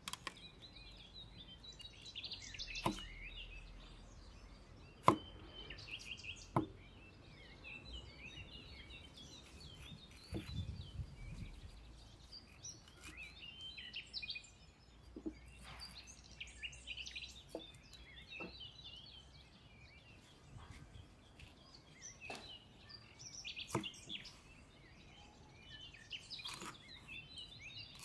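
Scattered sharp knocks of a steel cleaver striking a wooden chopping board as red chillies are sliced, with birds chirping throughout.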